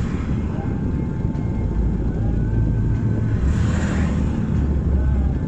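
Car engine running with a broken exhaust flexi joint blowing, giving a steady, harsh low rumble. A brief rise in hiss comes about four seconds in.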